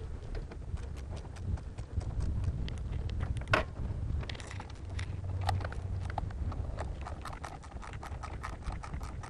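Ratchet wrench clicking in many short runs as a car battery's terminal clamp nuts are loosened, with one sharper click about three and a half seconds in.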